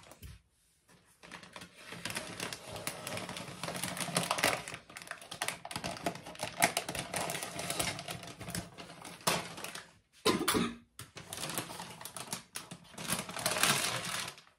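Thin clear plastic sleeve around a potted orchid crinkling and crackling as it is handled and pulled off, a dense run of rapid crackles with brief pauses about ten seconds in.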